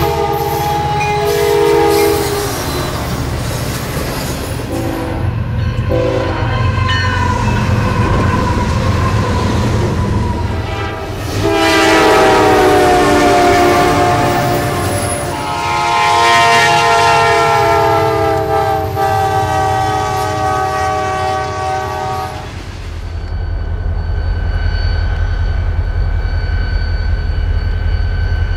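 Norfolk Southern diesel freight locomotives passing with their multi-chime air horns sounding: two short blasts early on, then two long loud chords in the middle. Under the horns run the steady rumble of the engines and the rolling cars, which carries on alone near the end.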